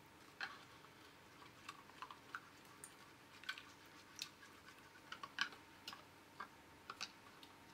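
Faint, irregular clicks of a plastic spoon tapping and scraping against a plastic bowl while stirring instant coffee into hot water.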